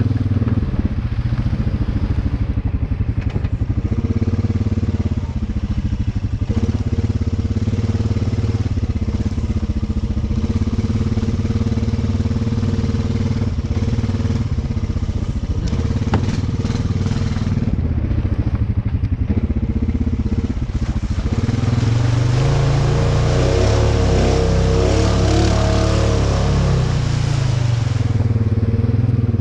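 Honda Rubicon 520 ATV's single-cylinder engine running under way through mud, pulling harder and louder for several seconds about three-quarters of the way in before easing off.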